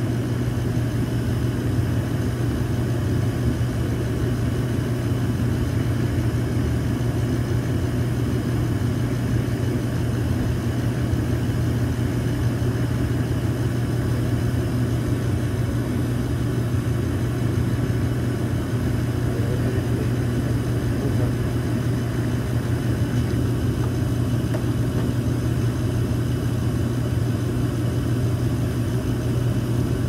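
York gas furnace running steadily, its blower motor giving a constant low hum and groan over the airflow noise. The motor's run capacitor tests below its rated 7.5 µF, and the technician takes the weak capacitor to be the cause of the groaning.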